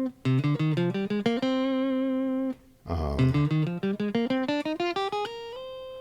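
Guitar playing quick single notes that climb in pitch and settle on a held note. After a short pause and a quick noisy strum about halfway, a second climbing run follows.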